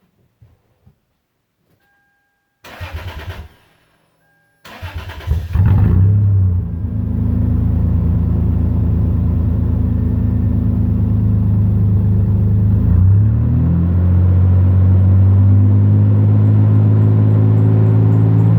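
2001 Toyota 4Runner engine, run with the muffler removed through a straight pipe and a homemade Helmholtz resonator, being started: the starter cranks briefly about 3 s in and stops, cranks again about a second later and the engine catches. It runs at a fast idle, then the idle drops a little about 13 s in and holds steady.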